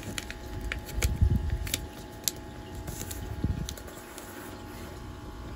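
A square of origami paper being folded and its crease pressed flat by fingers on a wooden tabletop: light paper crinkles and ticks with a few soft knocks, dying down after about three and a half seconds.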